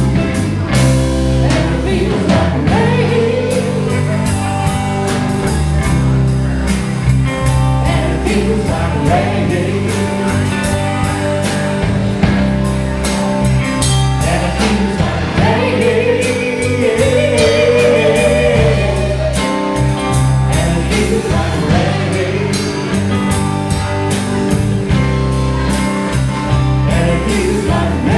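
A live blues band playing, with electric guitar over bass guitar and a drum kit.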